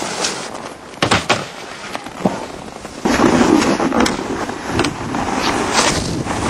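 Snowboard scraping and sliding over packed snow and a rail, with several sharp clacks of the board striking the rail and landing. The rushing scrape grows louder about halfway through.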